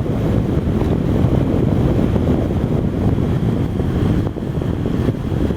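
GE Profile window air conditioner running with its fan on high, a steady rush of air buffeting the microphone held right up against the unit.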